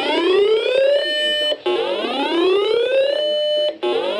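Electronic whoop alert tone: a note sweeps upward, holds steady for about half a second and cuts off, repeating about every two seconds, two full whoops with a third starting near the end. It sounds with a broadcast flash flood warning.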